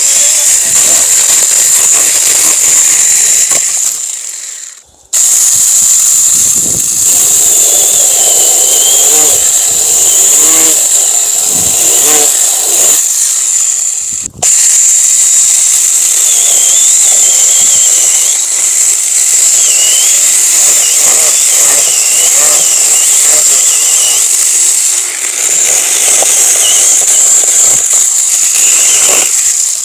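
Small electric saw running and cutting through fruit-tree branches, a steady high whine that wavers in pitch under load. It breaks off briefly twice, about five and fourteen seconds in.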